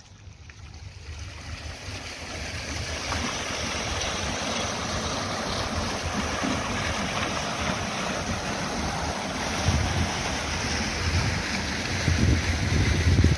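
Fountain jets splashing into a pool, a steady rushing of water that swells over the first few seconds. Gusts of wind buffet the microphone about ten seconds in and again more strongly near the end.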